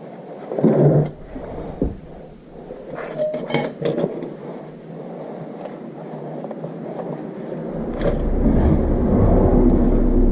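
Metal hand tools and parts clinking and knocking in short scattered bursts. A steady low rumble sets in near the end.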